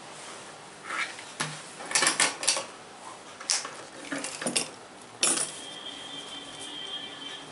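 An irregular run of sharp cracks and clicks from a barber's hands working the hair and scalp in an Indian hair-cracking head massage. After the last loud crack, about five seconds in, a faint high steady ringing tone holds for about two seconds.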